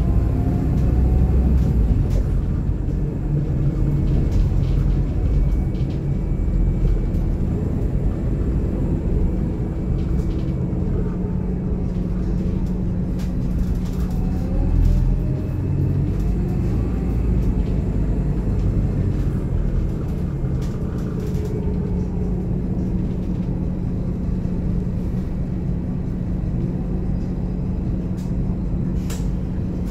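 Scania DC9 five-cylinder diesel and driveline heard from inside the coach's cabin while driving: a steady low rumble with a ZF Ecomat automatic gearbox. The engine note climbs briefly at the start and then holds steady through the second half, with occasional clicks and rattles from the cabin.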